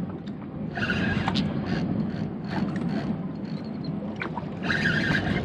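Spinning reel whirring in two short spurts while a hooked redfish is played on a bent rod, over steady wind and water noise on the microphone.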